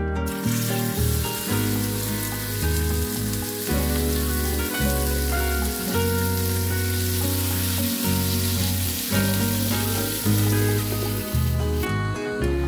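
Raw chicken breasts sizzling as they fry in hot oil in a nonstick pan, a steady dense hiss that cuts off sharply near the end. Background music with a steady bass line plays underneath.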